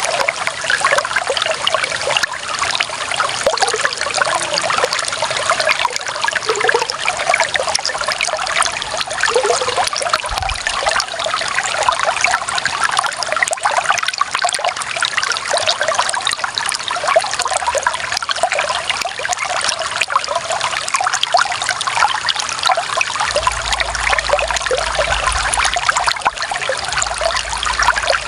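Clear running water trickling and splashing steadily, a shallow stream or small water flow with many small bubbling splashes.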